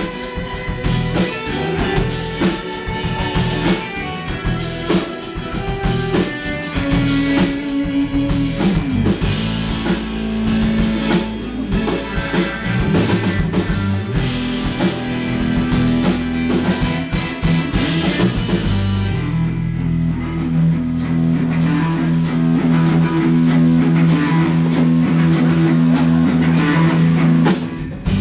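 Live rock band playing: electric guitar, bass and drum kit. About two-thirds of the way through, the busy drumming drops away and long held notes carry on to the end.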